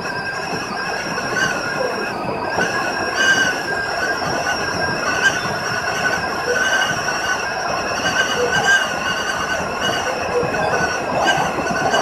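Electric commuter train running along the line, heard from inside the driver's cab: steady running noise with several high-pitched ringing tones held throughout, wavering slightly.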